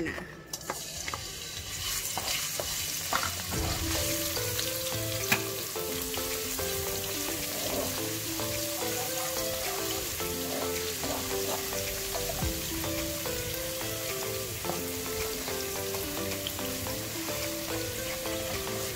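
Minced garlic sizzling in hot cooking oil in a nonstick pan as it is tipped in and stirred with a spatula. The sizzle rises sharply as the garlic goes in and then holds steady, with a few sharp taps of the spatula against the pan.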